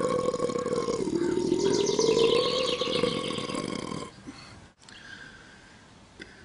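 A long, drawn-out belch that holds one pitch, dips lower about a second in and rises back, then ends about four seconds in, leaving quiet room tone.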